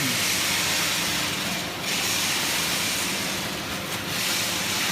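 Rice husk baling machine running: a loud, steady hiss that eases briefly about two seconds in and again near four seconds, over a faint low machine hum.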